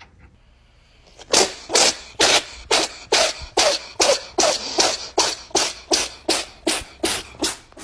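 A cat sneezing over and over in a rapid fit, about three short sneezes a second, starting about a second in.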